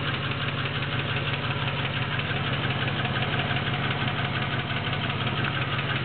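Land Rover Discovery engine idling steadily with a fast, even ticking riding over the engine note.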